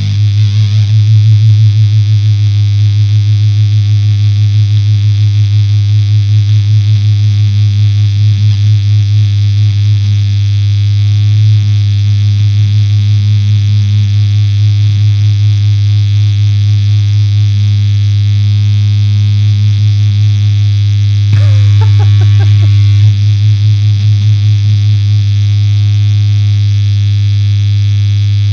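Electric guitar through a Gamechanger Audio Plasma high-voltage fuzz pedal at full voltage, one low, buzzy note held with near-infinite sustain and a slight pulsing. About three-quarters of the way through, a short louder crackle with falling pitches.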